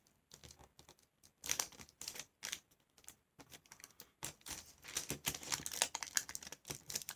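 Thin, wax-paper-like craft paper being folded and creased by hand on a wooden tabletop: soft crinkles, rustles and light taps of fingertips pressing the folds flat. There is a cluster about a second and a half in and busier handling in the second half.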